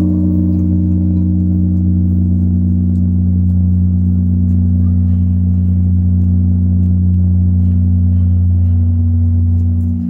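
Large temple bell ringing on after a strike: a deep, steady hum with a few higher tones that fade away over the first few seconds.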